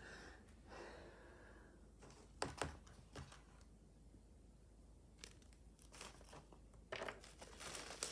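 Faint clicks and taps of laptop parts being handled: a few sharp knocks about two and a half seconds in, then a cluster of small clicks near the end.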